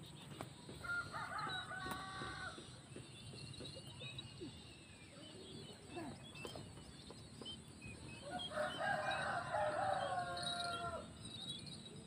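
Ruddy-breasted crake calling: two drawn-out, harsh call phrases, the first about a second in and the louder second one about eight and a half seconds in, with faint short chirps between them.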